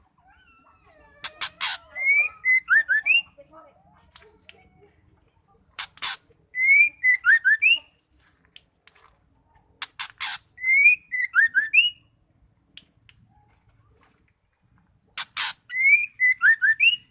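Female white-rumped shama calling: a harsh rasping note followed by a quick run of whistled notes, the same phrase repeated four times about every four to five seconds.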